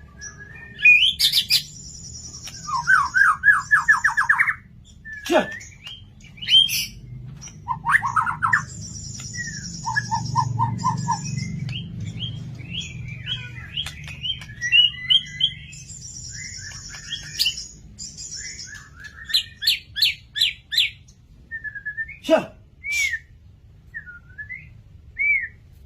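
White-rumped shama (murai batu) singing a loud, varied song: whistled phrases, fast trills, rapid runs of repeated notes and high buzzy rattles, with short pauses between phrases.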